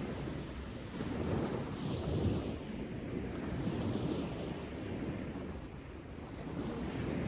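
Wind buffeting the microphone, a low rumbling noise that rises and falls in gusts.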